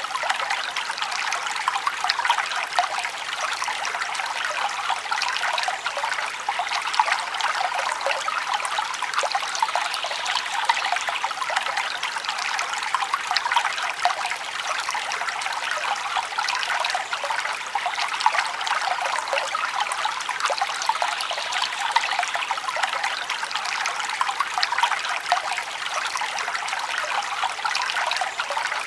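Forest brook flowing and babbling steadily, a light, bright trickling with little low rumble.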